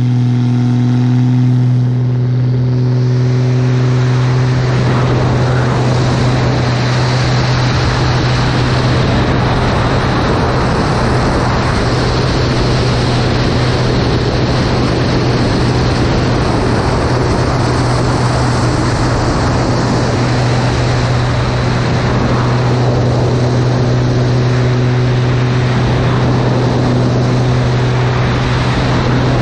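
Propeller-driven light aerobatic plane in flight: a steady deep drone of the piston engine and propeller under loud wind rush over the wing-mounted microphone. The wind rush builds up over the first few seconds and then holds.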